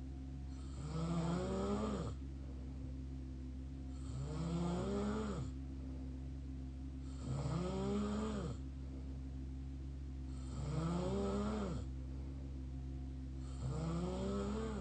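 Mouth snoring: five slow snores about three seconds apart, each rising and then falling in pitch, over a steady low hum.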